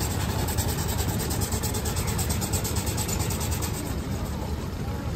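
Small engine running steadily with a fast, even beat over a low rumble.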